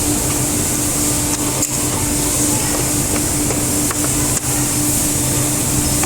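CNC woodworking machinery running steadily: a constant tone and hum over a high hiss, with a few faint clicks.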